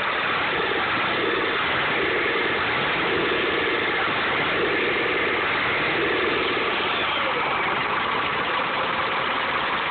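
Caterpillar 3116 inline-six turbo diesel engine idling steadily on an engine stand. It runs evenly with no unusual noise, which the owner takes as a sign that it has no problems.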